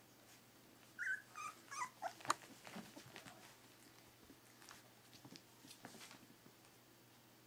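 Three-week-old Pyrenean Shepherd puppies giving a few short, high whimpering squeaks about a second in, followed by faint scattered clicks.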